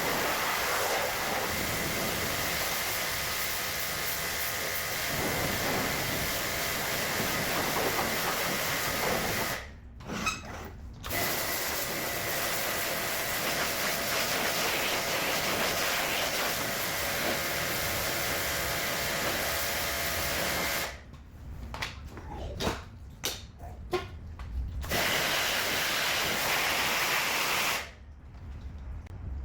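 Steady, loud hiss of a cleaning machine blowing or drawing air, with a thin whine running through it. It cuts out briefly about ten seconds in, stutters on and off a few times later, and stops shortly before the end.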